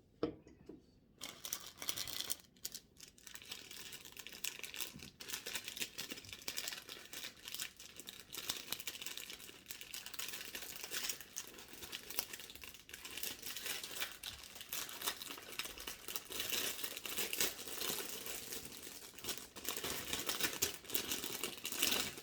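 Food packaging crinkling and rustling as it is handled and torn open, in a dense, continuous crackle that starts about a second in.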